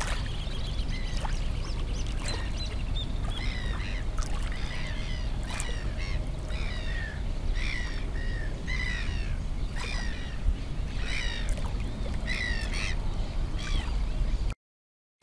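A bird calling over and over, short harsh calls that fall in pitch, about one a second, over a steady low rumble.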